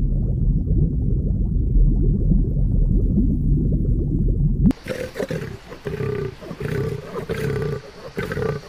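A low, steady underwater rumble, then from about five seconds in a leopard growling in repeated rough pulses.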